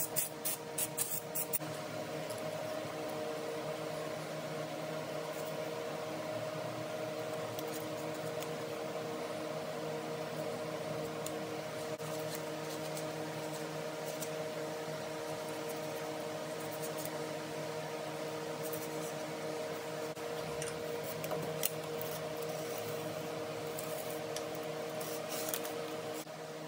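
Metal scraper scraping old gasket residue off the exhaust port face of a Jeep 4.0 straight-six's cast-iron cylinder head, in short scattered strokes, over a steady hum. A quick run of ticks comes in the first second or so.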